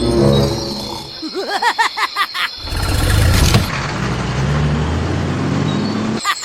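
Vehicle engine starting: about a second in, a rapid warbling whir lasts about a second and a half, then the engine catches and runs with a steady low hum.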